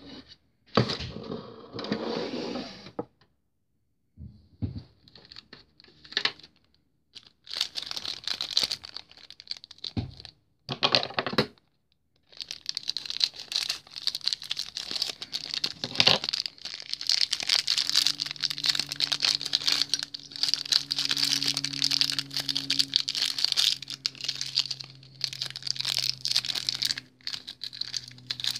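Plastic packaging crinkling and rustling as it is handled, in short separate bursts at first and then almost without pause from about halfway through.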